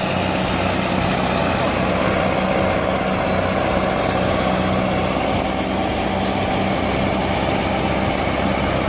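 Heavy diesel engines of logging machinery and trucks running steadily, a low, even drone.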